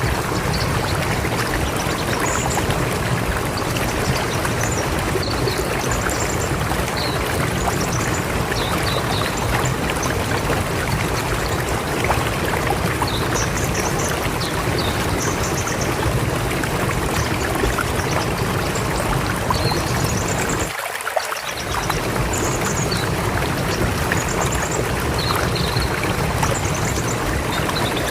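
River water flowing with a steady rush, with short high bird chirps scattered over it. The low rush drops out briefly for about a second near three-quarters of the way through.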